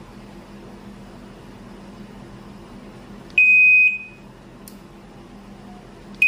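Sharp ES-F950P-GY washing machine's control-panel beeper sounding as the newly fitted control module is powered up and tested. It gives one high beep of about half a second a little past the middle, and a short beep at the very end.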